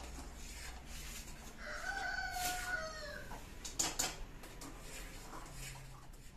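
A rooster crowing once: one drawn-out call of about a second and a half that falls in pitch at the end. Just after it come a couple of sharp clinks, a metal ladle knocking against the pot.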